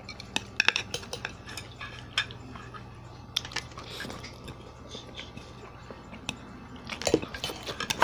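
Chopsticks and a utensil clicking against plates and a glass jar while people eat: scattered sharp clicks, busiest in the first second and again near the end, mixed with eating noises.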